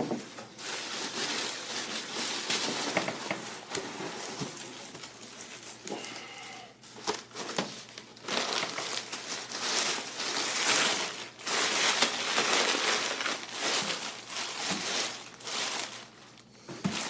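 Bubble wrap packaging being crinkled and pulled away by hand, in repeated bursts of rustling with short pauses.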